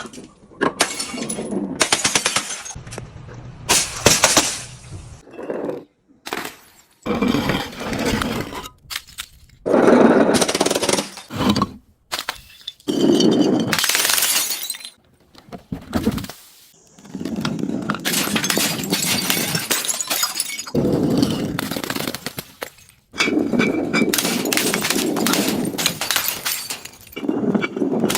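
Objects being crushed and broken, a dense crunching and crackling of many small cracks. It comes in a run of separate stretches of a few seconds each, starting and stopping abruptly.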